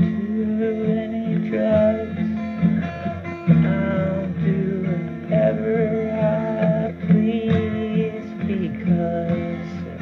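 Music: a strummed acoustic guitar playing a song, with sustained melody notes over a steady pulsing bass.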